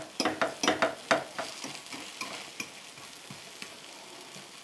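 A fork pressing and scraping a potato omelette as it fries in a non-stick pan, with a run of quick clicking strokes in the first second and a half, then a few scattered taps. A low sizzle of the frying runs underneath.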